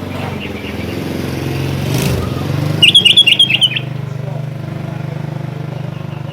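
Sooty-headed bulbul giving a rapid burst of about eight chirping notes about three seconds in, over the steady hum of an engine running.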